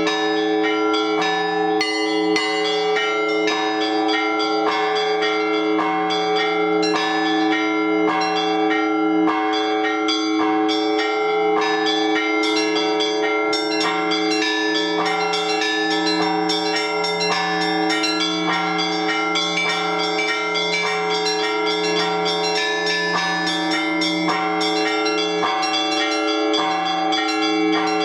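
Orthodox church bells rung together to call the faithful to the Divine Liturgy. Quick, dense strikes of small bells run over the steady hum of larger bells, and the deepest bell is struck at a slow, even pace.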